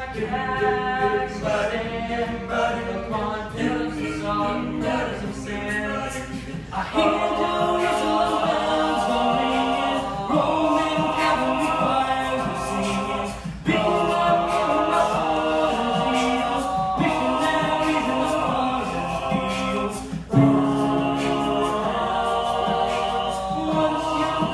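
A small group of teenage boys singing an a cappella close-harmony arrangement, several voices at once with no instruments. It gets fuller and louder about seven seconds in, with short breaks between phrases.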